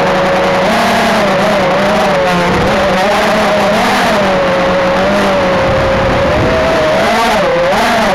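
Motor of a radio-controlled aircraft heard from its onboard camera, with air rushing past. The pitch holds steady at first, then wavers up and down from about a second in as the throttle changes in flight.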